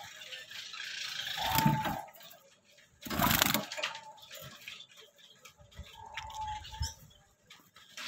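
Caged finches giving short, flat-pitched calls a couple of times, with a brief loud rustling burst about three seconds in.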